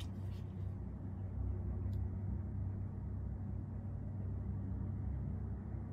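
Steady low background rumble, with a single faint tick about two seconds in.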